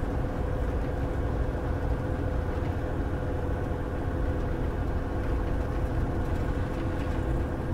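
Semi-truck's diesel engine and road noise heard from inside the cab while driving at highway speed: a steady rumbling drone with a constant hum running through it.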